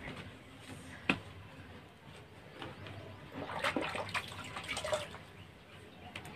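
Water splashing and trickling as a small child is washed with soap, loudest in a busy stretch in the middle. There is a single sharp knock about a second in.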